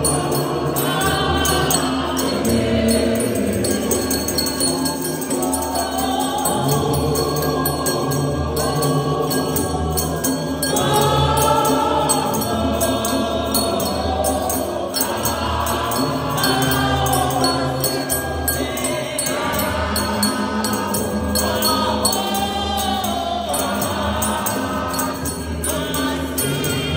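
A group of men and women singing a gospel hymn together without instruments, over a steady beat of hand-clapping.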